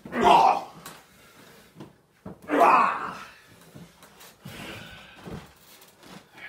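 Wrestlers grunting and crying out with effort as they grapple: two loud falling cries, one at the start and one about two and a half seconds in, the second just after a sharp thud. Quieter scuffling and movement follow in a small, echoing room.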